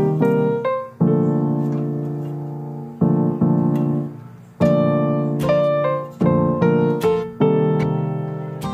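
Background piano music: slow chords struck every second or so, each ringing on and fading before the next.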